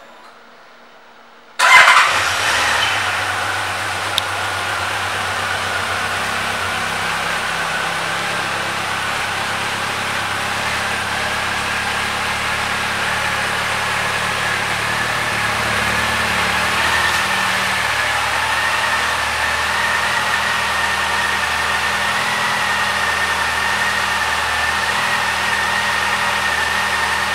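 2014 Honda CB1100E's air-cooled inline-four engine starting about two seconds in, flaring briefly as it catches, then idling steadily.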